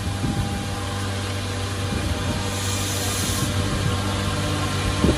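Holztek D2400-CNC lock and hinge boring machine running as it works the edge of a door panel: a steady motor hum, with a short hiss about halfway through and a couple of sharp knocks near the end.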